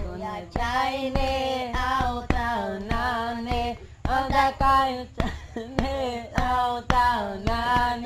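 Music: a singing voice holding long notes that bend in pitch at their ends, over a steady beat of sharp percussive hits about twice a second.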